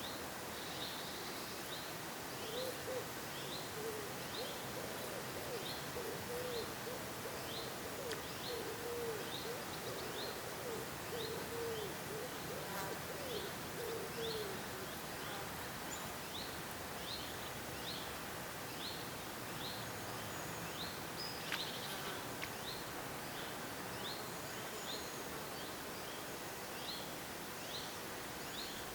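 Woodland ambience: a bird repeats a short, high call about once a second over a steady background hiss. A fainter, low wavering sound comes and goes in the first half, and there is a single sharp click about two-thirds of the way in.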